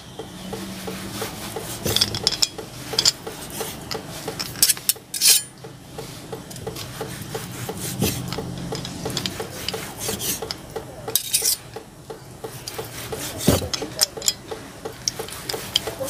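Kitchen knife sawing back and forth through grilled pork on a wooden cutting board, a steady run of rasping strokes, with a sharp knock of the blade reaching the board every few seconds as each thin slice comes free.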